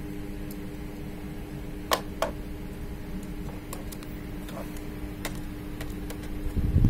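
Small sharp clicks and taps of a screwdriver and screws being refitted into a laptop's bottom cover, a handful of separate clicks, the two loudest close together about two seconds in, over a steady low hum.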